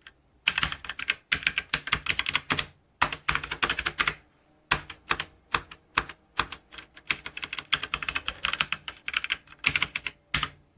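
Typing on a Logitech K845 mechanical keyboard with TTC Brown switches: rapid runs of key clicks with a few short pauses, stopping near the end.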